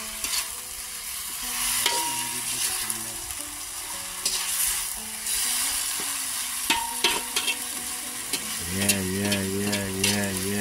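Diced vegetables sizzling as they fry in a black iron wok, stirred by a slotted metal spoon that scrapes and clicks against the pan.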